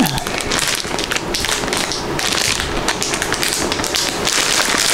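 Clear plastic zip bag full of small packets of diamond-painting drills crinkling as it is handled and turned, with many small crackling ticks.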